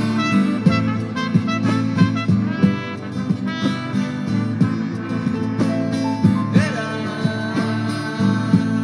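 Live instrumental music with a steady rhythm of plucked or struck notes over held low notes; about six and a half seconds in, a sustained melody note comes in on top.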